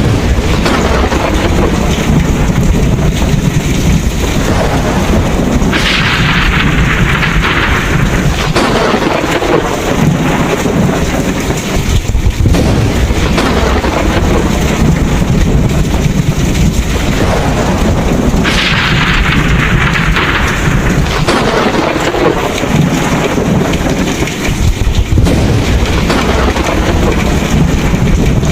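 Thunderstorm: steady heavy rain with low, continuous rumbling thunder. Twice, about six seconds in and again about eighteen seconds in, a brighter hiss swells up suddenly and dies away over a couple of seconds.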